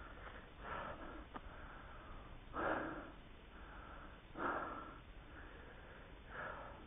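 A trail runner breathing hard close to a body-worn microphone: four heavy breaths about two seconds apart, the middle two the loudest.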